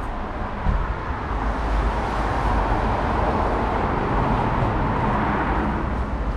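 Street traffic noise from a wet road outside: a steady hiss that swells through the middle as a vehicle goes by, over a low rumble.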